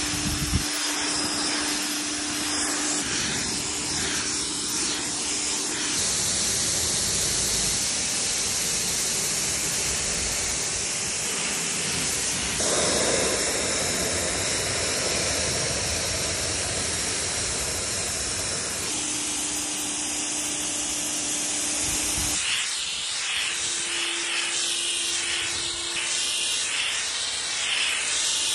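Pressure-washer jet spraying water against an RV's fibreglass body and windows: a steady, loud hiss that starts suddenly and changes character abruptly several times as the jet moves between surfaces. A steady low hum sounds under it in places.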